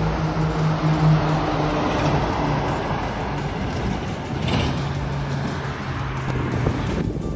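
Heavy truck hauling a low-loader trailer with an excavator on it, driving past and away, its diesel engine giving a steady low hum over tyre and road noise. A short rush of noise comes about halfway through.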